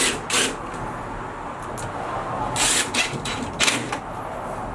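A hand tool scraping against drywall in several short strokes, a few seconds apart.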